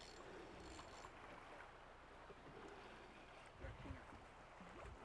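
Near silence: faint outdoor background, with a few soft low thumps about three-quarters of the way through.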